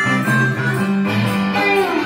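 Live blues instrumental: a cigar box guitar plays a steady low riff while a harmonica holds notes over it, one note sliding down in pitch near the end.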